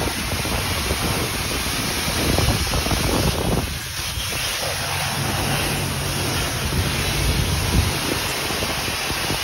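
High-pressure water spraying steadily from a self-serve car wash wand onto a car, with a low steady hum joining in around the middle.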